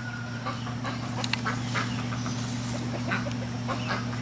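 Ducks quacking in short, scattered calls over a steady low hum.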